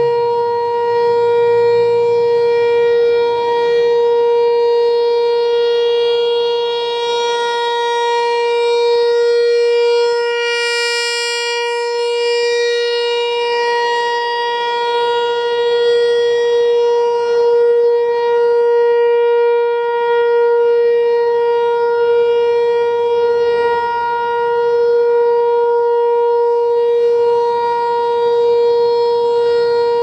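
ASC T-128 electronic outdoor warning siren sounding its steady Alert signal: one continuous tone that does not rise or fall in pitch. Its loudness swells and fades slowly as the horn rotates.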